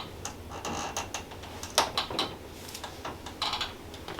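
Rustling and scattered clicks of handling on a chiropractic treatment table as a patient's leg is moved through a hip mobilization, with one sharper click a little under two seconds in.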